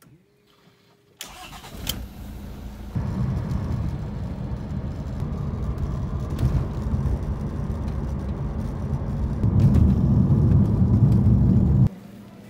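Car engine starting and then running with a steady low rumble. It gets louder about nine seconds in and cuts off abruptly near the end.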